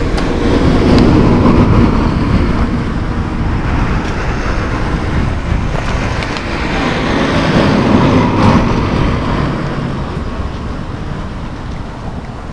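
Road traffic passing: a rushing noise that swells about a second in and again near eight seconds, then slowly fades.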